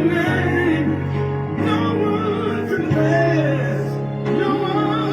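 Worship music: long held chords with a singing voice wavering over them.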